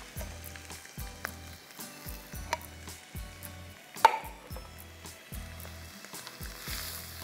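Sliced canned mushrooms, onion and garlic sizzling in oil in a non-stick frying pan, with a few utensil clicks and one sharp clink about four seconds in.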